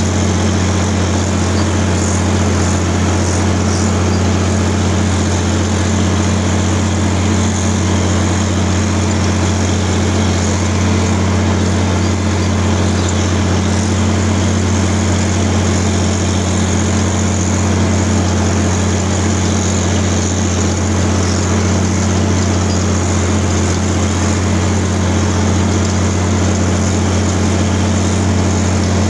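John Deere 4620's six-cylinder turbocharged diesel engine running steadily under load as the tractor pulls a soil finisher through the ground. The drone holds an even pitch and level throughout.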